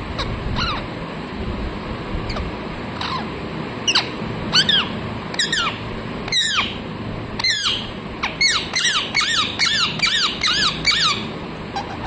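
Rose-ringed parakeet giving short, high calls that sweep quickly in pitch, a few spaced out at first, then a quick run of them over the last few seconds.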